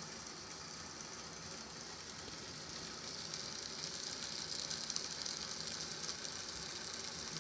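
Canon electric motor and MSC gearbox driving a Finney A4 model locomotive chassis on a rolling road: a steady whirr of motor and gears with a hiss, growing louder about three seconds in.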